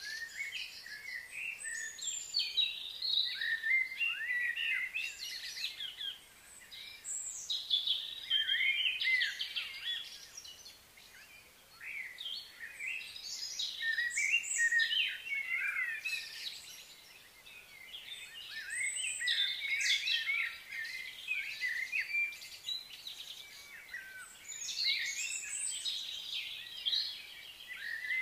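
Many small birds chirping and twittering together, in swells that rise and fade every five or six seconds.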